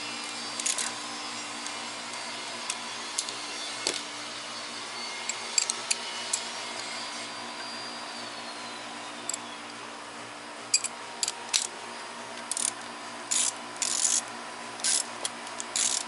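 Hand tools working on the bolts of a VR6 engine's accessory bracket: a few scattered clicks and taps, then from about two-thirds in a run of short ratcheting bursts, one or two a second, as a ratchet wrench turns the bolts. A steady hum runs underneath.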